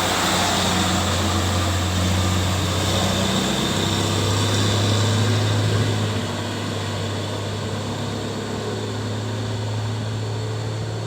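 Mitsubishi Canter truck fitted with a swapped-in Fuso diesel engine, running under power with a steady low drone. The drone eases and grows a little quieter about six seconds in.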